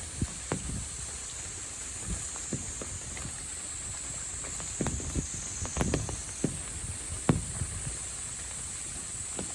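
Insect chorus with a steady high-pitched buzz, with scattered irregular knocks and taps, two of them loudest about six and seven seconds in.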